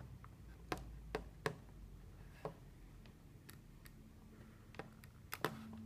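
Faint, scattered plastic clicks and taps, about eight spread over a few seconds, from test-lead plugs and fingers handling a digital multimeter on a tabletop.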